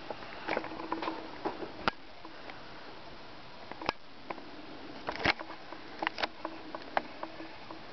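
Handheld camera handling noise: irregular light clicks and knocks, with a few sharper knocks about two, four and five seconds in and a cluster near the end.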